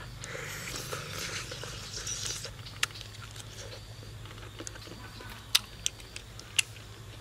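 A person chewing and smacking while eating cooked duck meat by hand, with a few sharp wet clicks of the lips and teeth spread through the second half.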